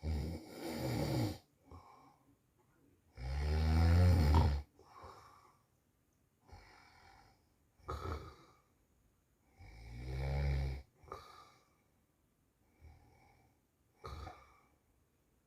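A man snoring in his sleep: loud snores every few seconds with softer breaths between them, the loudest about three seconds in.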